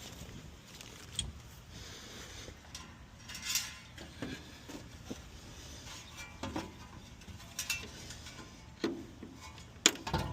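Scattered light clicks and metallic clinks from hand work on an air-conditioner condenser's fan-motor assembly, with a brief rasping sound about three and a half seconds in and a sharp click near the end.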